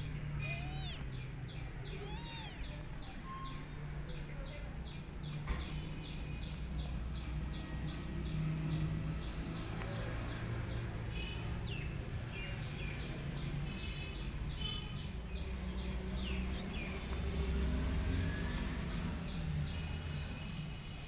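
Cat meowing a couple of times near the start, over rapid, repeated bird chirping that runs on through the rest, with a steady low rumble underneath.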